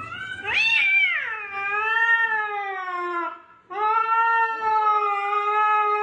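Cat yowling in two long drawn-out calls, the first rising and then sliding down in pitch, the second held steady after a brief break.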